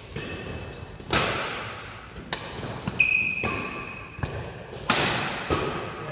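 Badminton rally: rackets striking the shuttlecock in sharp, echoing cracks, about six hits roughly a second apart. There is a brief high squeak about halfway through.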